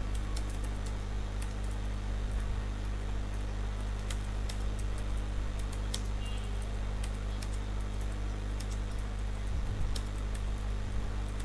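Typing on a computer keyboard: scattered, irregular key clicks, over a steady low hum.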